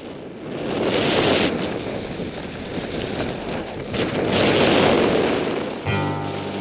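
Rushing noise of skiing fast downhill: wind buffeting the microphone together with skis running over the snow. It swells twice, once about a second in and again a few seconds later. Music comes in near the end.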